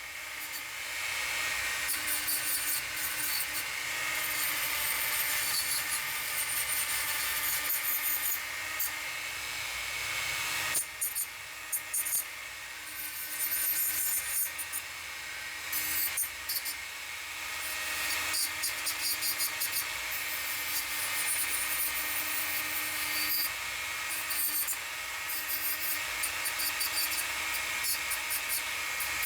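Dremel 4300 rotary tool running at low speed through its flex shaft, with an abrasive bristle brush scrubbing over a wood carving. A steady motor hum and whine under rasping, rubbing noise that rises and falls as the brush is pressed on and lifted off.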